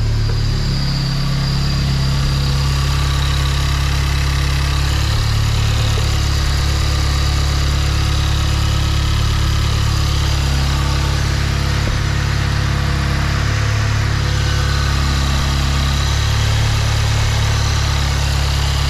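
Audi A3's EA888 turbocharged four-cylinder engine idling steadily just after its first start on freshly replaced multi-port fuel injectors, running evenly with no misfire heard.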